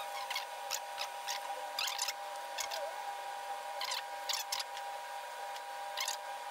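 Small hand-handling noises of light electrical wiring: a clear plastic bag crinkling and short scrapes and clicks as thin cable cores are twisted together, coming in irregular bursts every second or so.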